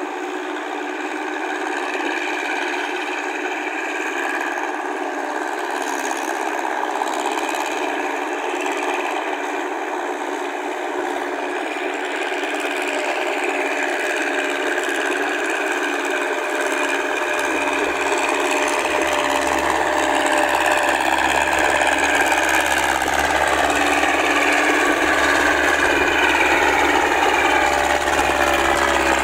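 Massey Ferguson 165 tractor engine running steadily under load as it drives a rotary tiller through a flooded rice paddy, growing louder and fuller as the tractor comes closer.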